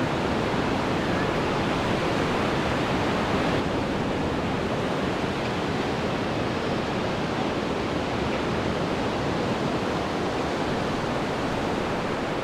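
Ocean surf breaking and washing on a sandy beach: a steady rushing noise with no breaks, turning slightly duller about three and a half seconds in.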